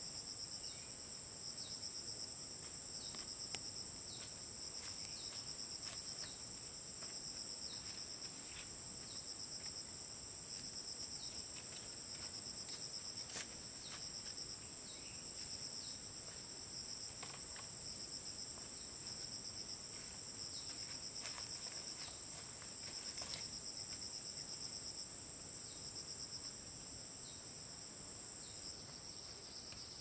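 Insects trilling: one steady high-pitched trill runs throughout, joined by a second pulsing trill that comes and goes, with scattered short falling chirps.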